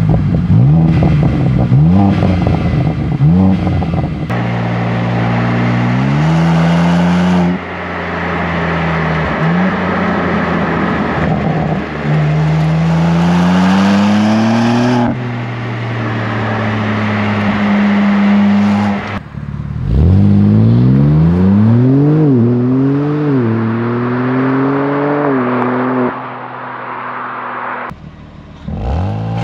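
BMW M3 Competition's S58 twin-turbo straight-six heard through its quad-tip exhaust, in several short cut-together runs: the engine note climbs hard and drops back at each gear change as the car accelerates, and later rises and falls repeatedly as it is revved.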